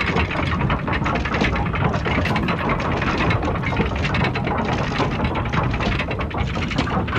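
Castle drawbridge mechanism running steadily: a continuous dense rattle of rapid clicks over a low rumble.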